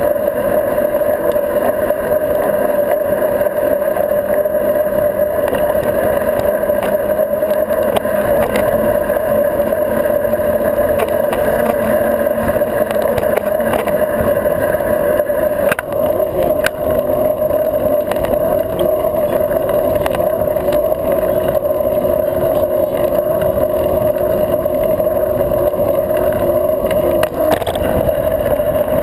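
Steady drone of a mountain bike's knobby tyre rolling on asphalt, heard close up from a low-mounted action camera with some wind on the microphone. Shortly before the end a lower hum in the drone drops out.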